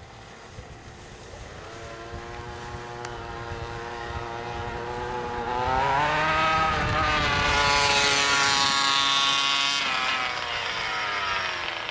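27cc two-stroke gas engine of a large-scale RC monster truck running hard, growing louder and rising in pitch as the truck speeds closer, loudest in the second half. About ten seconds in it breaks off abruptly to a fainter run of the same engine, falling in pitch as it moves away.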